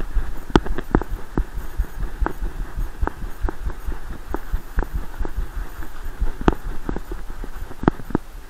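Muffled, irregular thumping and knocking from an action camera mounted on a running Groenendael Belgian Shepherd: the dog's strides over dry leaf litter jolt the camera, with a sharper click or crunch every second or so.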